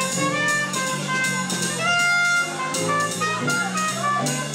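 Live jazz: a trumpet playing held and moving notes in front of a small band, with drum kit hits and a steady low line underneath.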